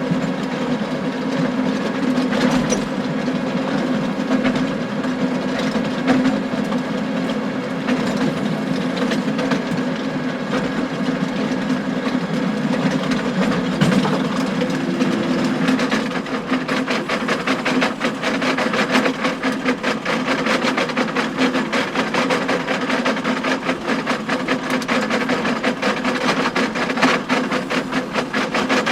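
John Deere tractor engine running steadily under load while a harrow's tines clatter against stones in a rapid, continuous rattle of clacks and bangs. The clacking grows denser about halfway through.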